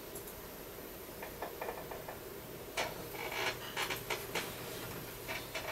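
Irregular light clicks and taps from fingers handling a touchscreen smartphone. A few come about a second in, and a denser cluster from about three to four and a half seconds in, over a faint steady hum.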